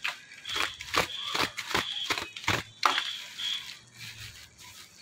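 Clear plastic wrapping and bubble wrap crinkling as hands grip and pull at the parcel: a quick, irregular string of sharp crackles, with a few brief high squeaks mixed in.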